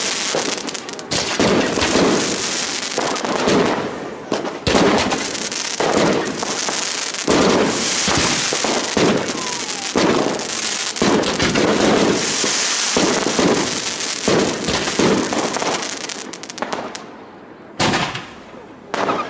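Fireworks display: a rapid, continuous barrage of bangs and crackling from aerial shells and rising sparkling tails. It thins out near the end, leaving a couple of separate sharp bangs.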